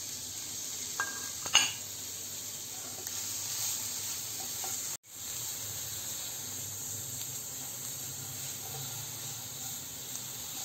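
Chopped fenugreek leaves with a little red chilli sizzling steadily in a nonstick frying pan while a silicone spatula stirs and presses them, driving off the leaves' moisture. A single sharp clack comes about a second and a half in.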